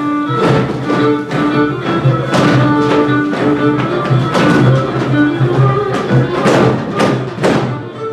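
Hungarian folk dance music with fiddles over a steady low bass line, with sharp, irregular thumps of dancers' stamping feet over it.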